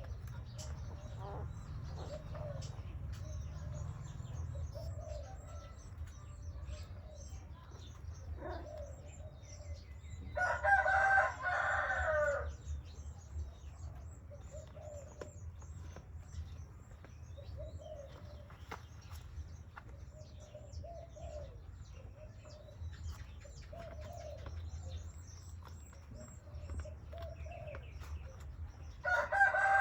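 Animal calls: two loud, drawn-out calls of about two seconds each, one about eleven seconds in and one near the end, with short soft calls between them over a low steady hum.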